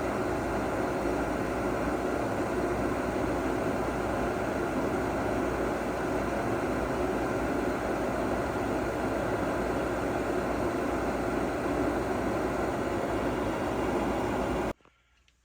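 Gas furnace's draft inducer fan running with a steady whoosh during an ignition attempt, while the igniter, which is burned out, fails to glow. The sound cuts off suddenly near the end.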